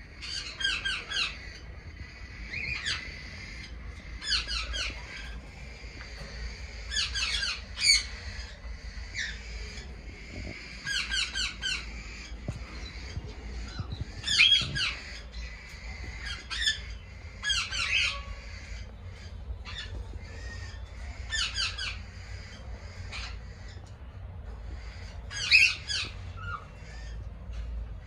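Cockatiels calling in their cages: short bursts of quick, repeated shrill notes every second or two, over a steady low hum.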